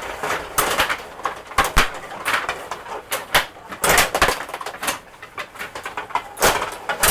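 Table hockey game in play: irregular sharp clacks as the puck and the plastic players strike each other and the boards.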